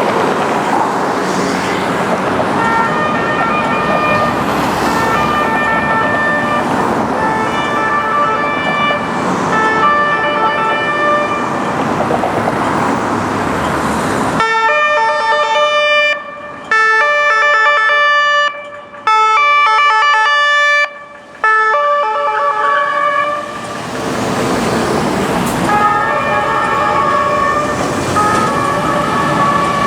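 Austrian police car's two-tone siren, alternating between two pitches, with the car's engine and road noise heavy under it for much of the time. Near the middle the siren sounds clean and alone and cuts out briefly three times.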